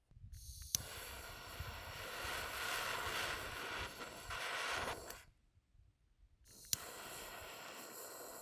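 Meat sizzling in a hot frying pan, in two spells with a short quiet gap between.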